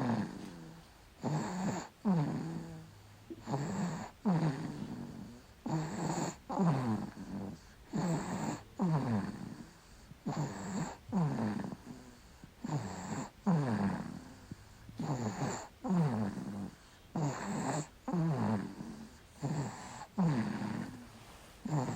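A baby snoring in a steady rhythm, a snore roughly every second, each one dropping in pitch.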